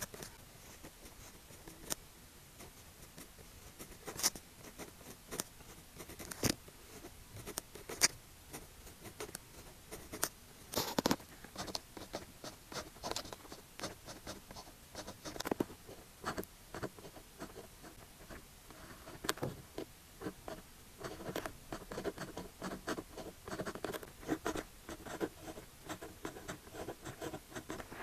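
Pen writing Chinese characters on paper: a quiet, irregular run of short scratches and taps from the pen strokes, with a few sharper ticks.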